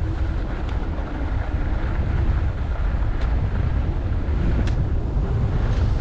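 Wind rumbling on a moving skier's camera microphone, mixed with the steady hiss and scrape of skis gliding over groomed snow, with a couple of brief sharp ticks midway.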